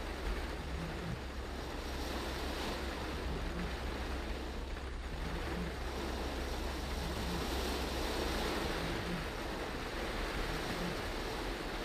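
Steady rush of heavy rain on a moving car and its tyres on a flooded road, heard from inside the cabin, over a low road rumble.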